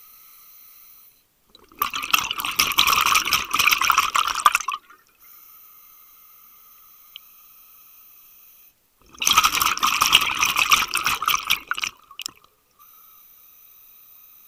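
Scuba diver's regulator exhausting, heard underwater: two long bursts of rushing, crackling exhaled bubbles a few seconds apart, one breath each, with a faint steady hum between breaths.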